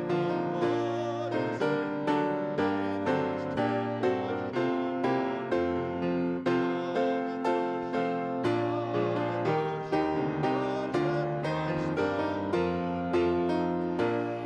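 Piano playing a song in a steady rhythm, with chords struck about twice a second. It stops at the end.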